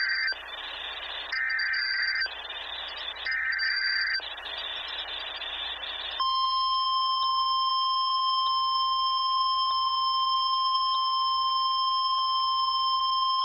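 NOAA Weather Radio Emergency Alert System opening: short warbling bursts of the digital SAME header, about a second apart, with radio hiss between them. About six seconds in, the steady single-pitch 1050 Hz warning alarm tone begins and holds.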